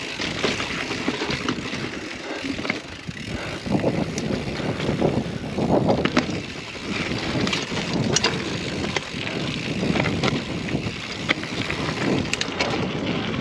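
Hardtail mountain bike descending a dirt singletrack: wind rushing over the camera microphone and tyre noise on the trail, with scattered knocks and rattles from the bike over bumps.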